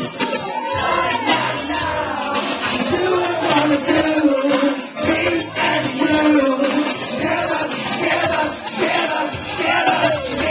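A man singing into a handheld microphone, with other voices singing along.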